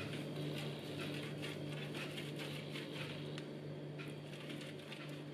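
Boiled egg white rubbed up and down the fine side of a metal box grater: faint, quickly repeated scraping strokes over a low steady hum.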